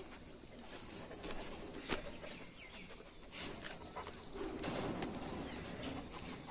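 Birds chirping, with a few quick high twittering calls in the first second and a half, over scattered clicks and scuffling.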